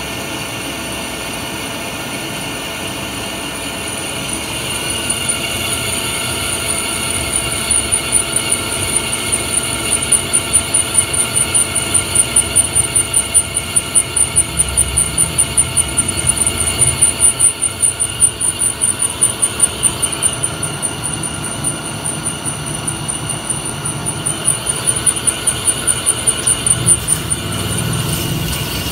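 CNC lathe drilling a deep hole with a twist drill into a spinning metal workpiece. The machine runs steadily, and from about four seconds in the cut adds a high-pitched whine with a fast flutter, which stops shortly before the end.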